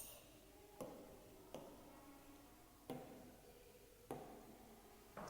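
Near silence, broken by about six faint, sharp clicks at irregular intervals of roughly a second.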